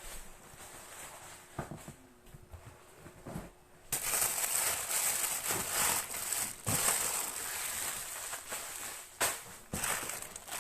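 Plastic packaging crinkling and rustling as items are handled, with a few soft knocks at first. About four seconds in the rustling gets much louder and goes on crackling.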